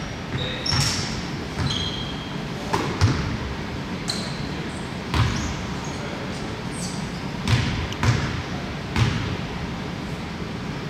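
A basketball bouncing on the court in about eight irregular thuds, with several short, high sneaker squeaks in between.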